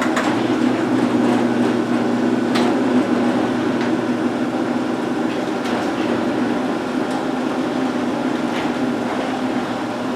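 1999 LiftMaster 1000SDR garage door opener running, lowering the door: a steady motor hum with a few light clicks and rattles from the drive and door. It is a bit louder on the way down.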